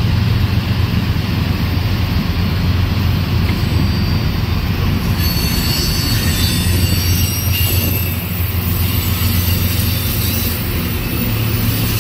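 Amtrak single-level passenger coaches rolling past as the train departs, a steady rumble of wheels on rail. High, thin wheel squeal joins in about five seconds in.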